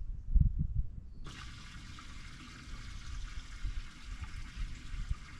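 A few low thumps, then water spraying steadily. The spray starts abruptly about a second in and keeps going.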